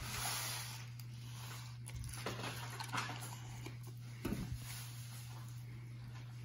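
Faint, scattered crackling and clicking of Pop Rocks popping candy as it is tipped into the mouth and chewed, over a steady low hum.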